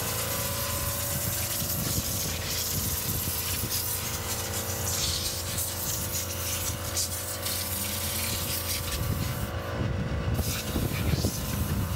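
Compressed air hissing from an air-hose blow gun, blowing water out of a freshly washed engine bay, over a steady low hum. The air cuts out briefly about ten seconds in.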